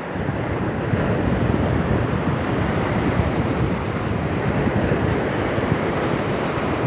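Ocean surf washing and foaming over dark rocks below a pier, a steady rushing sound, with wind buffeting the microphone.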